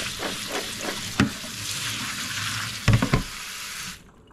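Kitchen tap water running steadily onto saskatoon berries in a plastic colander, hissing as it splashes over the berries, with a few knocks as the colander is handled and set down in the stainless steel sink. The water stops abruptly about four seconds in as the tap is shut off.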